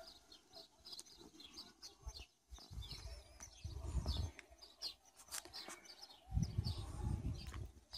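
Small birds chirping faintly and repeatedly. Two spells of low rumble come through, about four seconds in and again for over a second near the end.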